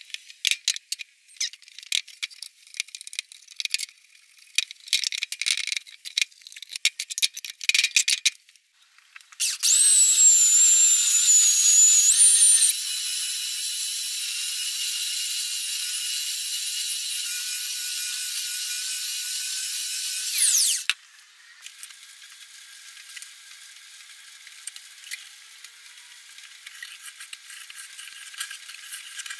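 Loose wooden strips knocking and rattling as they are handled. About nine seconds in, an electric hand planer starts and runs loudly with a high whine for about eleven seconds, planing the face of the strip panel, then cuts off and winds down. A fainter steady hiss follows.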